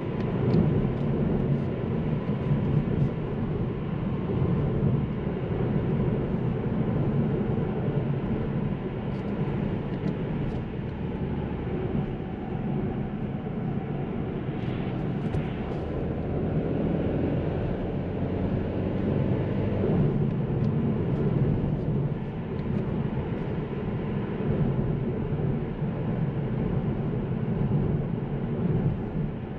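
2024 Kia Ceed SW's 1.5 T-GDI turbocharged petrol engine heard from the cabin, with tyre and road noise, while the car is driven briskly. The engine note rises and falls with the revs.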